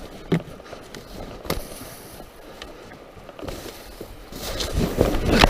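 Scattered knocks and steps of someone wading over river stones, with louder water noise building near the end.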